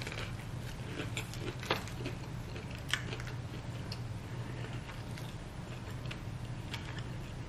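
A person biting into and chewing a Big Mac taco, a seared tortilla with beef and shredded lettuce: faint, scattered crunches and mouth clicks. A steady low hum runs underneath.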